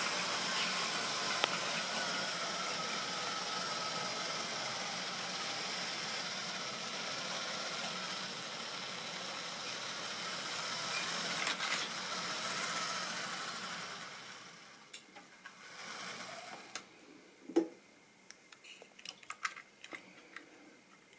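Model railway train running on its track: a steady electric motor whine with wheel rattle that fades away about two-thirds of the way through, followed by a few light clicks.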